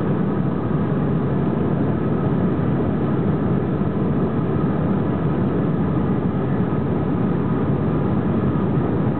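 Steady jet engine and airflow noise heard inside an airliner cabin during the climb: an even, dense rumble with a few faint steady tones above it.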